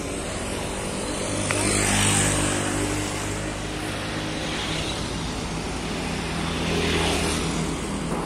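Motorcycles passing along the road, swelling loudest about two seconds in and again near seven seconds, over a steady low engine hum.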